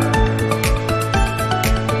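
Background music with a steady beat, about two beats a second, over sustained notes.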